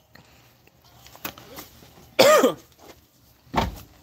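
A man coughing and clearing his throat after a drink went down the wrong way: a loud harsh cough about two seconds in and a shorter, lower one near the end.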